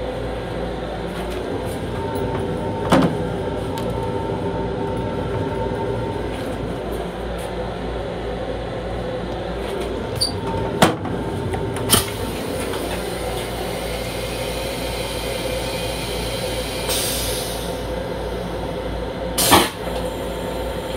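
Steady rumble and hum of an MTA Long Island Rail Road M7 railcar, heard from inside its enclosed restroom. A few sharp knocks and rattles break through, and a brief hiss comes a few seconds before the end.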